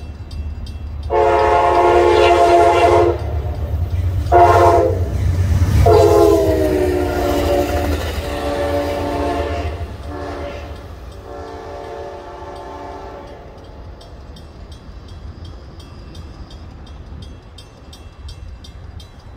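CTrail passenger train's locomotive horn sounding a series of long and short blasts over the low rumble of the passing train. The horn stops about two-thirds of the way through and the rumble fades away.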